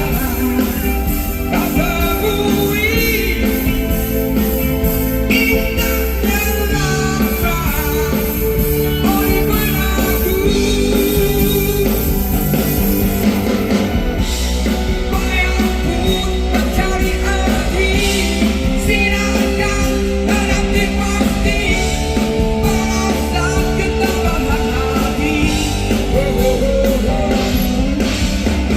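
Live rock band music, loud and continuous, with a melodic lead line over electric guitar, bass and drums.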